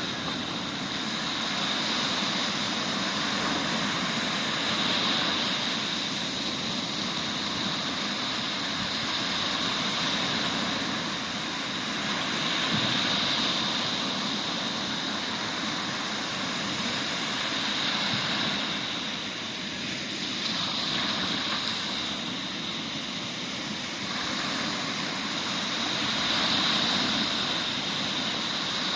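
Sea waves breaking on a sandy beach: a continuous rush of surf that swells and eases every several seconds.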